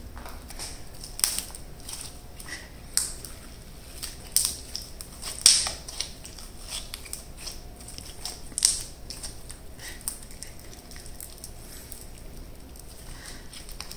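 Elmer's glue slime being squeezed, stretched and pressed by hand, giving irregular sharp wet clicks and bubble pops, a few of them much louder, growing sparser near the end.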